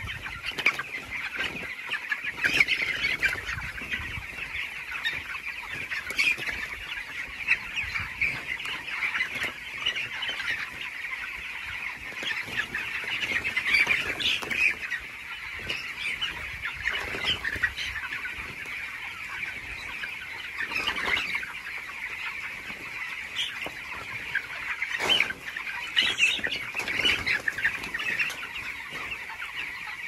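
Continuous massed peeping and clucking of a large flock of broiler chickens, a dense steady chorus with louder single calls standing out now and then.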